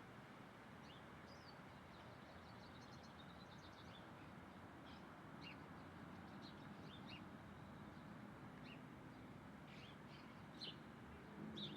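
Faint bird calls: scattered short chirps, with a quick run of notes about three seconds in and louder chirps near the end, over a steady background hiss.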